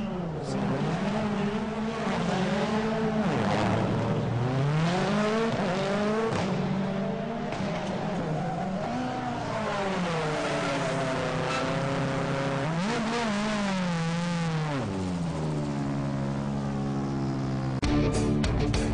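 Ford Fiesta WRC rally car's engine revving hard and dropping back again and again as the car is slid around a tight coned course, with tyre squeal. Music comes in near the end.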